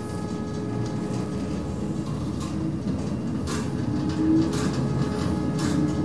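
Automatic lift car travelling up its shaft non-stop: a steady machine hum and rumble, with sharp rattles about once a second from about two seconds in.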